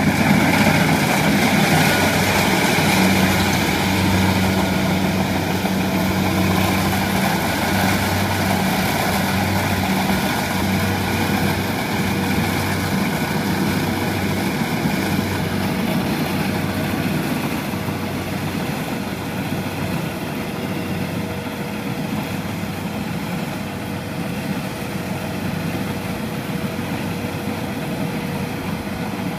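Kubota DC70 combine harvester's diesel engine and machinery running steadily, with a low hum that pulses in the first half, growing gradually quieter toward the end.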